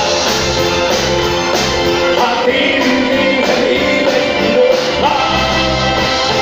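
A male singer singing live into a microphone, backed by a band of guitar, bass guitar and drums.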